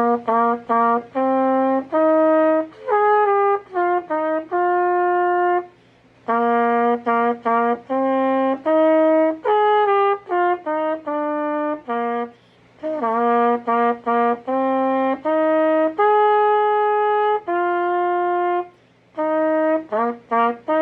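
A solo trumpet playing a lively melody, quick repeated notes mixed with held ones, in phrases about six seconds long separated by brief pauses for breath.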